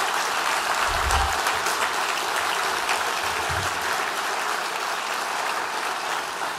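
Audience applauding steadily, slowly fading toward the end, with two brief low thumps about a second in and about three and a half seconds in.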